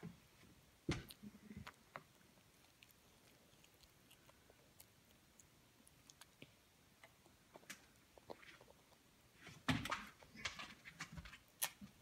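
Quiet, scattered small clicks and taps of a toddler eating cereal from a plastic bowl with her fingers and a plastic spoon, with mouth and chewing sounds. A busier run of taps and smacks comes about ten seconds in.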